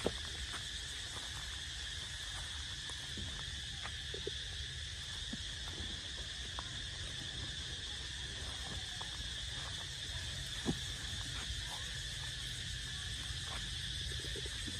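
Steady drone of insects, held at a constant high pitch, over a low outdoor rumble, with a few faint short clicks and a sharper one about eleven seconds in.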